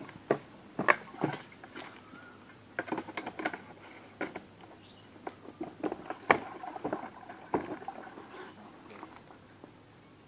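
Irregular clicks and knocks from handling a sprayer tank and its lid, a few sharp taps in quick clusters with the loudest knock a little past the middle.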